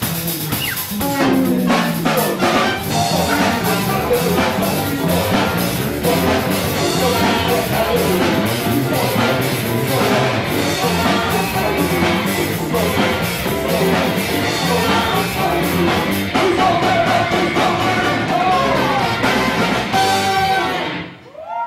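Live band with saxophone and horns, electric guitar, bass and drums playing a loud, rhythmic passage, with some singing. The music breaks off near the end.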